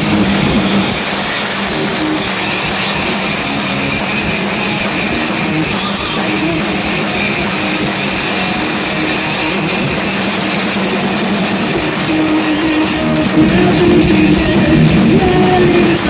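A heavy metal band playing live: distorted electric guitar over a drum kit, heard through the hall's PA. The music gets a little louder about thirteen seconds in.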